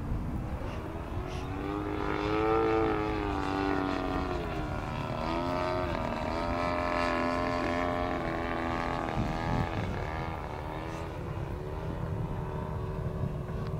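Radio-control Super Chipmunk model plane's EME35 35cc two-stroke petrol engine running in flight. Its pitch rises and falls several times as the plane passes and the throttle changes, and it is loudest about two to three seconds in.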